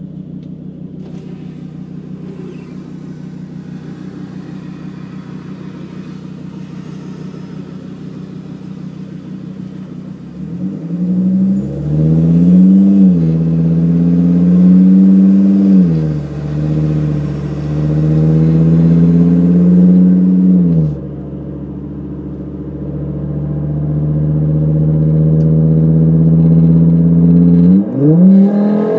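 Volvo S60R's turbocharged five-cylinder engine through a muffler-less exhaust with a Dynomax Bullet resonator, heard from inside the cabin. It idles steadily, then about ten seconds in it gets much louder as the car pulls away, the revs climbing and falling twice. After a brief let-off it settles into a steady, building cruising drone.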